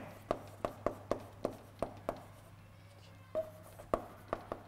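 Chalk tapping and scraping on a chalkboard during handwriting: a run of short, sharp clicks, about two or three a second, at an uneven pace.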